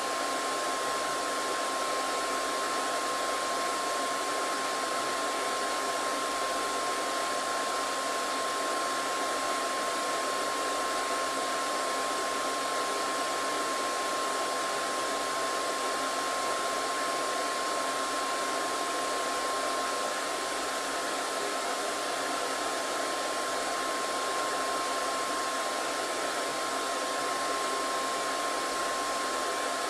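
Hair dryer running steadily: an even rushing airflow noise with a steady whine held throughout.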